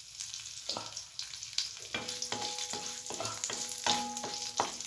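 Mustard seeds, urad dal and fresh curry leaves sizzling and popping in hot oil as a tempering. From about two seconds in, a metal spoon stirs them against the pan in quick strokes, about three a second, each with a short metallic ring.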